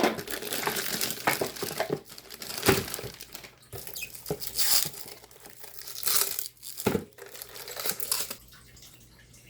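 Plastic packaging crinkling and rustling as an item is unwrapped and pulled out of its box, with a couple of sharp knocks. It goes quiet near the end.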